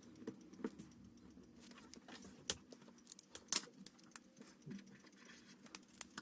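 Faint, irregular clicks and light taps of art pens on paper and the desk during drawing, the sharpest about two and a half and three and a half seconds in and just before the end, over a low steady hum.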